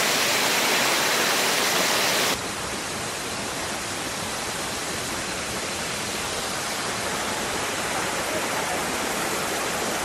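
Steady rush of a waterfall and its swollen, muddy stream in heavy flow after heavy rain. The sound drops abruptly to a quieter rush about two seconds in.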